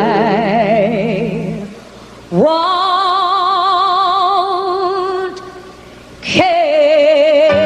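Background music: a woman singing a slow ballad in long held notes with wide vibrato, three sustained phrases separated by brief pauses.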